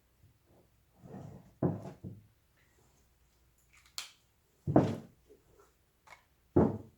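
Hand carving of wood: a series of separate cutting strokes of a knife into the wood, with a sharp click about four seconds in.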